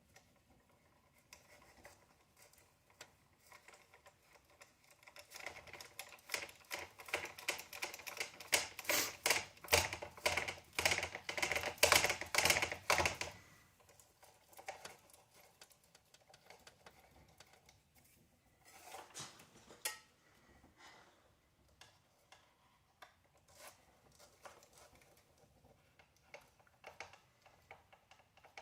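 Rapid, irregular clicking of a hand tool and small metal parts as a pillow ball is screwed tight into an RC buggy's front hub, loudest for several seconds in the middle, with a shorter burst of clicks later and faint ticks in between.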